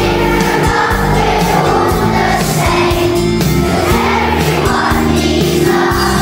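Background music with voices singing over it, steady in level throughout.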